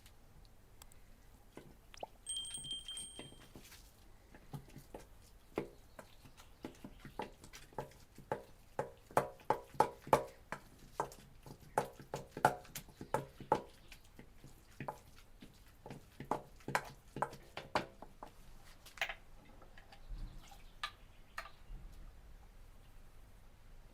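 A run of light taps, each with a short ringing note, about two a second, fading out after about eighteen seconds. A brief high tone sounds once near the start.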